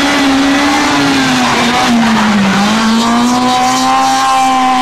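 Honda Civic rally car's four-cylinder engine running at high revs as the car passes. The note dips briefly about halfway through, then climbs and holds steady.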